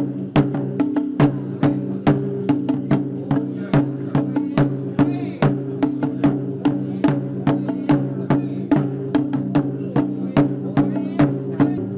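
Japanese festival music: sharp percussion strikes, two to four a second in an uneven pattern, over a steady low held pitch.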